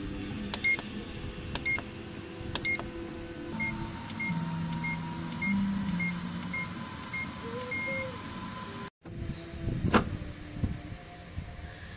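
Treadmill console beeping three times, about a second apart, as its buttons are pressed. Then the new incline motor runs with a steady whine and low hum while the console beeps rapidly. About ten seconds in comes a loud single knock as the plastic motor cover is set back in place.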